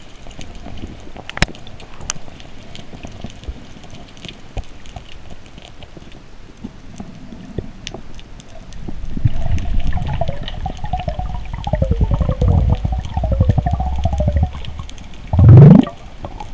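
Underwater sound picked up through a GoPro's housing: faint scattered crackling clicks, then from about nine seconds a louder low pulsing rumble with a wavering whine over it, and a loud rising whoosh near the end.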